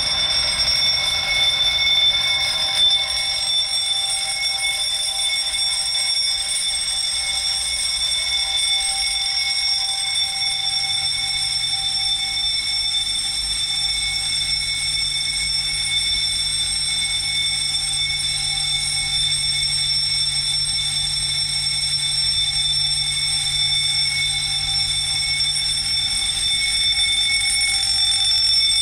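Fire alarm sounding continuously under test, a steady, unbroken high-pitched ring at an even level.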